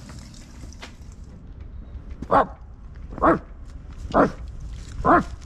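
A dog barking four times, evenly spaced about a second apart, starting about two seconds in.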